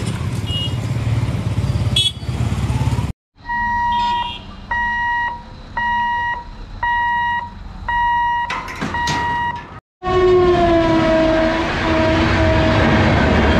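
Road traffic and motorcycles rumbling across a level crossing. After a cut comes an electronic warning beep, repeating about once a second while the gate barrier moves. After a second cut, a passing train's locomotive horn sounds one long, loud blast, pitch sagging slightly, over the rushing noise of the coaches.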